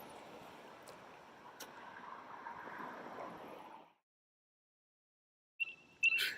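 Faint steady background noise that cuts off abruptly into dead silence about four seconds in. Near the end a new shot opens with a click, then sharp clicks over a steady high chirping tone.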